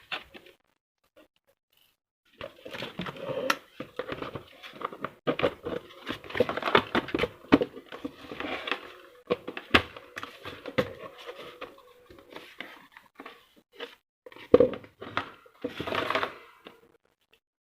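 Irregular rustling, crinkling and clicking of plastic fan parts and packaging being handled and fitted together, starting about two seconds in and stopping shortly before the end.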